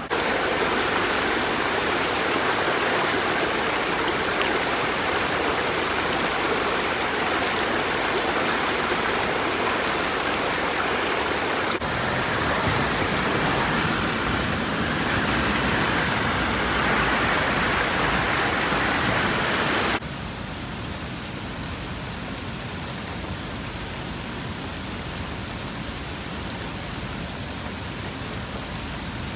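Flash floodwater rushing and heavy rain falling: a steady rushing noise that drops to a quieter, even hiss of rain about two-thirds of the way through.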